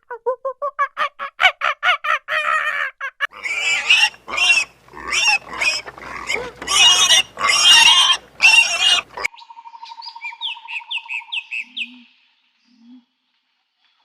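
A succession of farm-animal calls. First comes a rapid run of short pitched calls for about three seconds. Then come loud, harsh calls for several seconds, and then a short series of high, falling chirps over a steady tone, ending about two seconds before the end.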